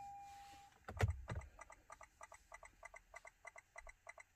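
A steady electronic tone fades out, two knocks sound about a second in, and then a Lexus's turn-signal ticker clicks rapidly and evenly: the signal is hyper flashing.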